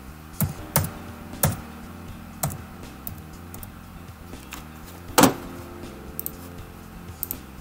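Scattered sharp clicks of a computer mouse and keyboard, several in the first three seconds and a louder one a little past five seconds.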